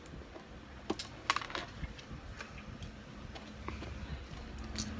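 Small plastic building bricks and a plastic part of the set clicking and tapping as they are picked up and handled: a handful of sharp, scattered clicks at irregular moments.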